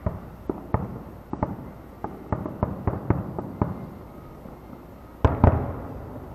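Aerial fireworks shells bursting far off: a quick series of about a dozen sharp bangs over the first four seconds, then two loud bangs in quick succession near the end, trailing off in echo.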